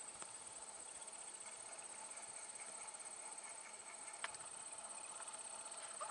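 Faint insect chorus trilling steadily at a very high pitch, with one sharp click about four seconds in.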